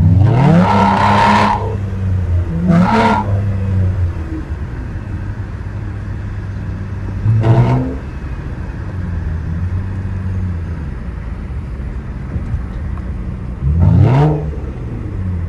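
Lexus engine and exhaust accelerating hard right away, the revs climbing, then climbing again from lower after a shift about two and a half seconds in. It settles into a steady cruise with a short rev rise about halfway through and another rising pull near the end.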